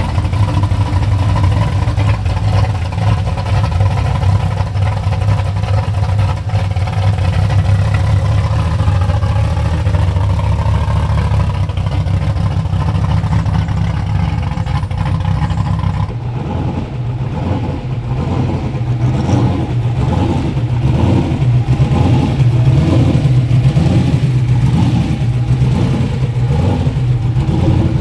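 A 1980s Buick Regal's engine and exhaust rumbling steadily as the car rolls slowly by. About halfway through, this gives way suddenly to a Fox-body Mustang drag car's engine, which runs with a pulsing exhaust note.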